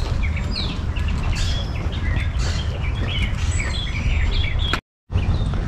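Wetland birds chirping and calling in many short, quick notes over a steady low rumble. The sound cuts out completely for a moment near the end.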